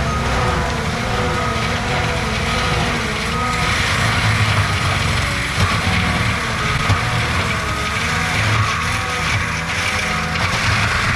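Skid steer with a forestry mulcher head running hard. The engine's pitch wavers up and down as the load changes, and a steady grinding hiss from the mulching grows stronger a few seconds in.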